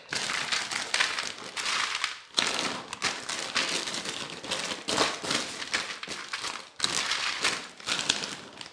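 A zip-top plastic freezer bag and the sheet lining the tray crinkle and rustle in irregular crackles as handfuls of frozen chopped celery are scooped into the bag.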